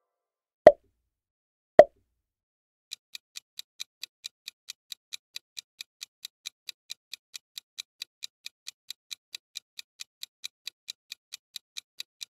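Two short pop sound effects about a second apart, then a countdown-timer ticking sound effect: quick even ticks, about four and a half a second.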